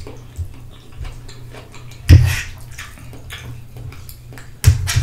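Close-miked wet chewing and slurping of spaghetti, with small mouth clicks and two louder knocks, about two seconds in and near the end.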